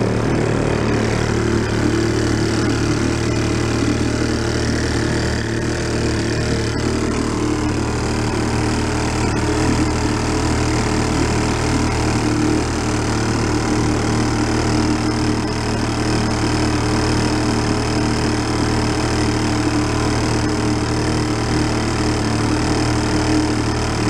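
1937 Sears Waterwitch 2.5 hp two-stroke outboard motor running steadily under way, driving the boat, with water churning in its wake.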